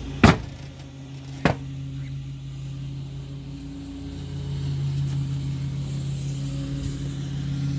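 Two sharp snaps about a second apart as the door trim panel is yanked off at the bottom, its plastic retaining clips popping out of the door, over a steady low mechanical hum.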